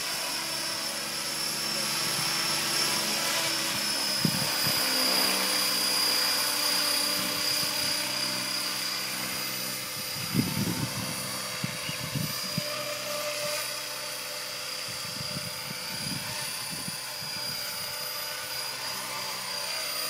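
Align T-Rex 550 electric radio-controlled helicopter flying close by: a steady high motor whine over the whirr of its rotor blades. A few brief dull low thumps come about four seconds in, near the middle, and again later on.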